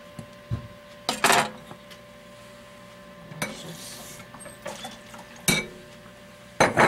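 Kitchen utensils and dishes being handled on a counter: about five separate knocks and clinks, a couple of them short clatters, over a faint steady hum.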